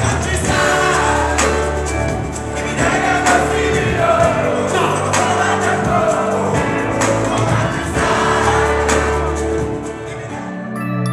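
Music with singing, several voices together over a steady bass line. Near the end it gives way to a different, lighter instrumental tune.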